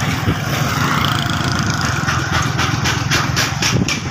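Motorcycle engine running steadily at riding speed, heard from the bike itself.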